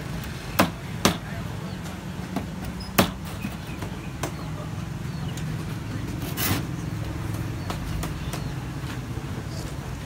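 Claw hammer driving nails into the pine frame of a wooden bird cage: a few sharp knocks in the first three seconds, the loudest about three seconds in, then the hammering stops. A steady low hum runs underneath.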